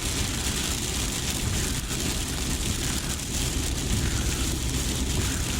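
Car driving through heavy rain: a steady low rumble with a constant hiss of rain and wet road.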